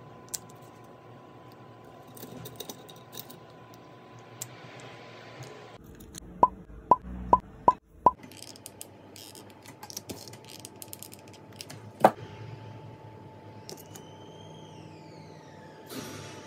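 Wooden craft sticks being taken from a tray and laid down on a wooden tabletop, making light clicks and taps. A run of five sharp, evenly spaced clicks comes a little before halfway, and one loud click comes later.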